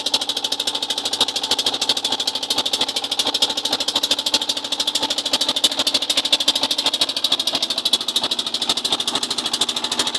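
Small engine of a fishing boat running steadily, a rapid even beat with no change in speed.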